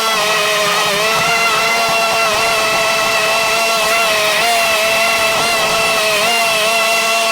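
Engine of a 25-inch YBravo walk-behind lawn mower running steadily while mowing tall grass, its pitch dipping slightly a few times.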